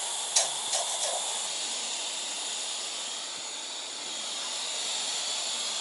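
SOTO liquid-fuel camp stoves burning under pots with a steady hiss. A few light clinks in about the first second.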